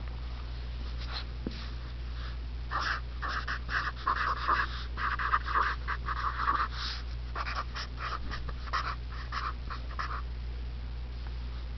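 Marker pen squeaking and scratching across paper in quick strokes as words are written, from about three seconds in until about ten seconds in, over a steady low hum.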